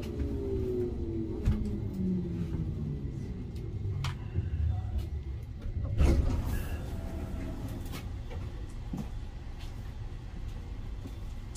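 Stuttgart U2 light-rail train pulling away: a steady low running rumble, with electric drive tones gliding downward in the first few seconds. Its wheels clack over rail joints and points, loudest about six seconds in.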